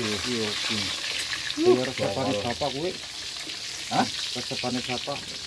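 Whole tilapia frying in hot oil in a wok, a steady sizzle, as the fish are turned and lifted out with a metal skimmer and spatula. A short knock of a utensil on the wok comes about four seconds in. Voices talk over the frying.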